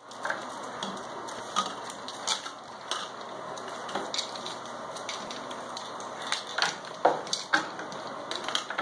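Brittany puppies, five weeks old, chewing and pawing at plastic toys and a plastic bottle: irregular clicks, clatters and crinkling over a steady rustle, with a sharper knock about seven seconds in.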